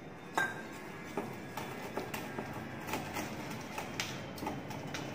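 Wire balloon whisk beating pancake batter in a stainless steel mixing bowl: irregular metallic clinks and taps of the wires against the bowl, about two or three a second, the loudest about half a second in.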